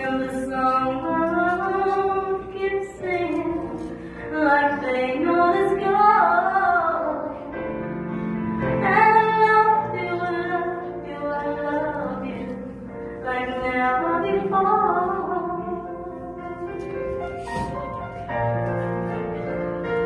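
A woman singing a slow ballad with long held notes, accompanied by a Yamaha Clavinova digital piano. Near the end the voice pauses and the piano carries on alone.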